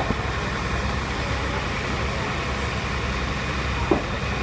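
A fire engine's diesel engine running steadily at idle, with one short knock near the end.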